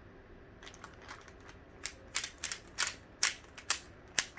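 Rubik's Cube being turned fast in a speed solve: a quick, irregular run of sharp clicks and clacks from the layers snapping round, starting about half a second in.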